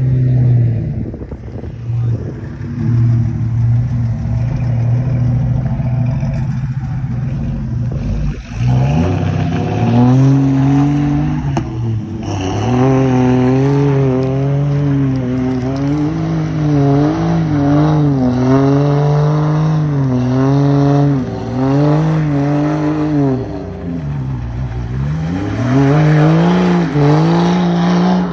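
Off-road SUV engine running at a steady note, then, from about eight seconds in, revving up and down over and over as the vehicle spins its tyres in the mud.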